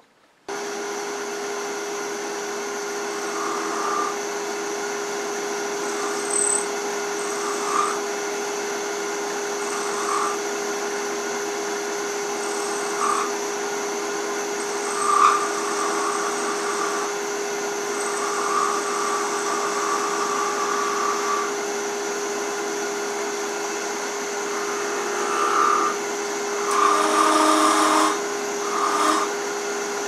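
Wood lathe running with a steady hum that starts abruptly, while a small pointed turning tool makes short, intermittent cuts on the thin spinning finial tip of a wooden ornament; the cuts come every few seconds and are loudest and longest near the end.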